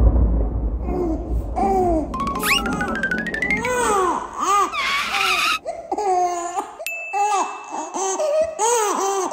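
A baby giggling in a run of short rising-and-falling laughs over background music, with cartoon sound effects: a low rumble dying away at the start, a quick rising glide about two seconds in, and a single bright ding about seven seconds in.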